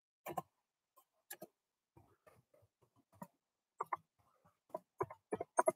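A few light, scattered clicks and taps, sparse at first and coming more often in the last couple of seconds.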